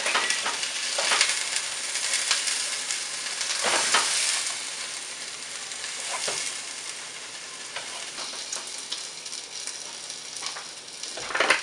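Chicken cutlets sizzling in olive oil in a frying pan, with a few sharp clicks and scrapes of a metal fork against the pan as the cooked cutlets are lifted out. The sizzling is louder in the first half and eases as the pan empties.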